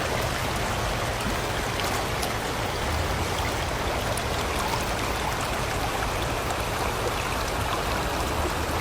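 River water rushing steadily over rocks, a constant even splashing hiss.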